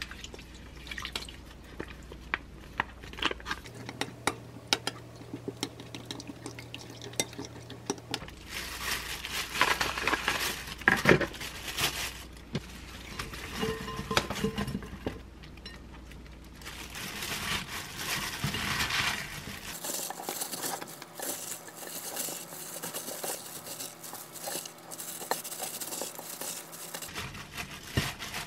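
A metal spoon clinking and scraping against a glass mixing bowl as a thick marinade is stirred. Chicken and sliced cabbage are then tipped in from a plastic colander and squished together with hands in a crinkling plastic glove.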